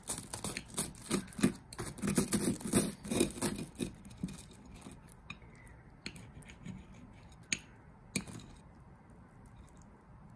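Knife and fork cutting through a crisp-toasted ham, egg and cheese toast on a plate: the crust crunches and crackles, and the cutlery scrapes and clicks on the plate. The cutting is busiest in the first four seconds, then only a few single clicks.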